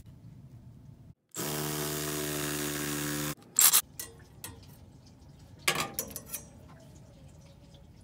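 A small power tool's motor runs at one steady pitch for about two seconds, starting and stopping abruptly. A few sharp clicks and knocks follow.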